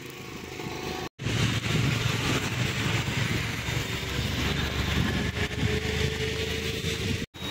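Steady noise of a moving motor vehicle mixed with wind buffeting the microphone, coming in abruptly about a second in after a short cut and breaking off again near the end.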